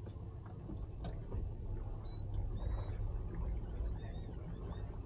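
Boat engine idling with a steady low rumble while the boat creeps ahead at slow speed, with a few faint high squeaks over it.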